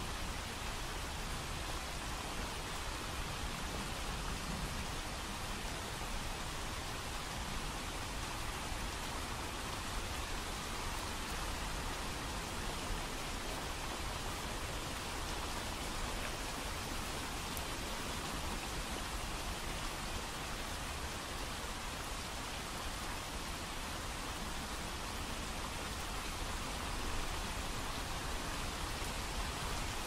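Steady rushing of water, an even hiss across low and high pitches that holds one level throughout, with no separate swells or breaks.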